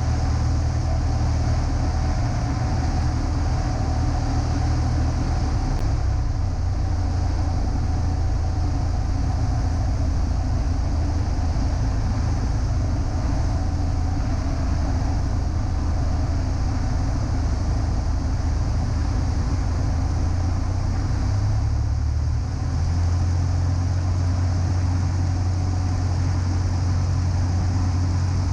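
Steady drone of a 1946 Aeronca Champ's engine and propeller in flight, heard inside the cabin, with its low hum shifting slightly a couple of times.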